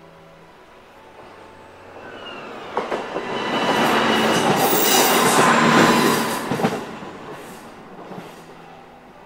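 KiHa E130 diesel railcar passing close by: its rumble builds over a couple of seconds, peaks with clacks of the wheels over the rail joints, then fades away.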